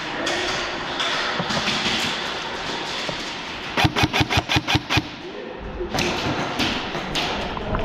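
Airsoft gunfire in an indoor plywood arena: a rapid string of sharp cracks, about eight a second, lasting just over a second around the middle.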